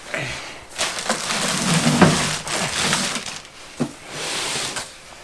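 Cardboard packaging being handled and crushed, with scraping and crackling and a sharp knock about four seconds in.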